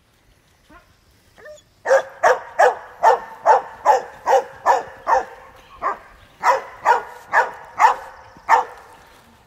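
A small dog barking repeatedly: about fifteen short, high barks at two to three a second, with a brief pause midway.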